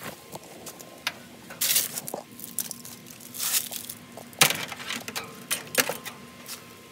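Irregular rustling and crackling with scattered sharp clicks and knocks, from a cable being pushed by hand through plastic pool plumbing and dry brush. There are louder bursts of rustling about one and a half, three and a half and four and a half seconds in.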